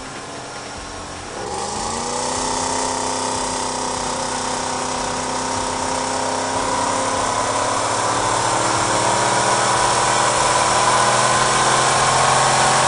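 Supercharged 4.6-litre V8 of a 2006 Ford Mustang GT making a wide-open-throttle pull on a chassis dyno. About a second and a half in it goes to full throttle, and its pitch climbs steadily as the revs rise, with the Vortech T-Trim centrifugal supercharger's high whine rising along with it.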